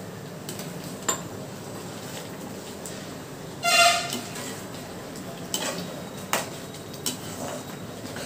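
A spoon stirring a thickening rice-rava and coconut dough in a pan, knocking against the pot a few times. About three and a half seconds in, a short, loud horn-like toot lasting about half a second.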